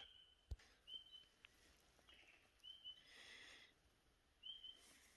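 Faint bird calls: four short high chirps a second or two apart, over quiet bush, with a brief rasping sound about three seconds in.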